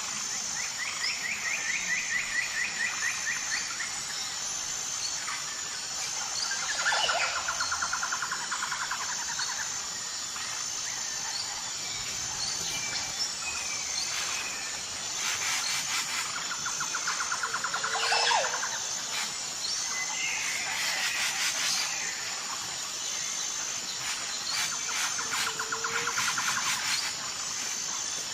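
Birds singing in rapid pulsed trills, four of them about two to three seconds long, with a few sharper chirps between, over a steady high-pitched insect drone.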